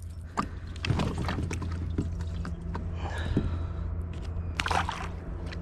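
Handling noises from a small white bass just landed in a kayak: scattered clicks, rustles and knocks, with a louder knock near the end, over a low steady hum.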